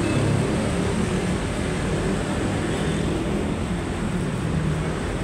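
Steady street traffic noise, a continuous rumble of vehicles with a low engine hum rising and falling.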